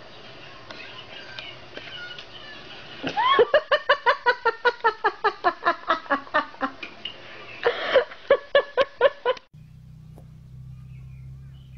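A person laughing hard in a long string of rapid 'ha-ha' bursts, about four a second, starting about three seconds in and flaring again near eight seconds. It cuts off abruptly, leaving a steady low hum.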